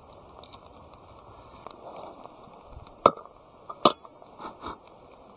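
Sharp chopping strokes: two loud strikes about a second apart, followed by two fainter knocks.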